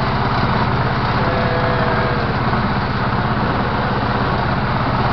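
Ursus C-330 tractor's two-cylinder diesel engine running steadily under load while mowing with a rotary mower, heard from inside the cab.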